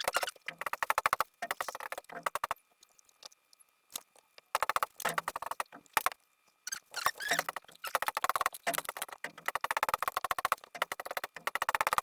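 Cleaning wipe rubbing and squeaking over the fan's surface in bursts of rapid scrubbing strokes, with a pause of about two seconds early on and shorter breaks later.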